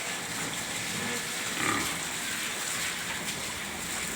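Farmed pigs calling in their pens, with one louder call a little under two seconds in, over a steady rushing background noise.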